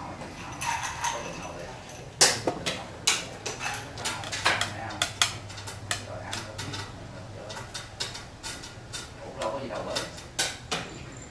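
Xiangqi pieces clacking: a piece is set down sharply on the wooden board about two seconds in, followed by a run of quick clicks of pieces knocked against the board and against one another, with a few more clicks near the end.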